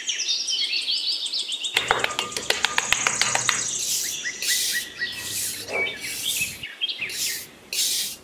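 Small metal trowel scraping across sand in a series of short hissing strokes from about four seconds in, with birds chirping and trilling, most busily in the first half.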